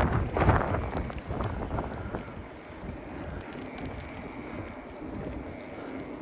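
Strong wind buffeting the microphone, in loud gusts for about the first second, then settling to a steadier, quieter rush.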